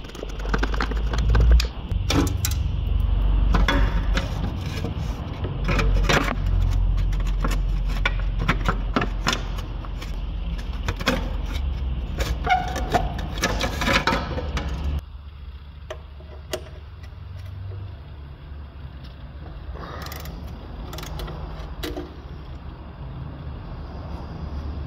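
Hand ratchet and socket clicking and clinking on car underbody bolts, over a steady low hum. About fifteen seconds in the hum stops abruptly and the clicks become fewer and fainter.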